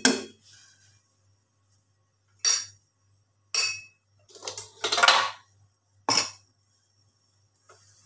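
A metal ladle clinking against steel cookware as it is set down in a steel bowl: four separate clinks between about two and six seconds in, the third a longer rattle.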